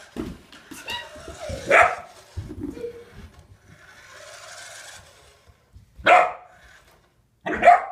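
Puppy barking in a few short, sharp barks at a toy car, one about two seconds in, one about six seconds in and two in quick succession near the end.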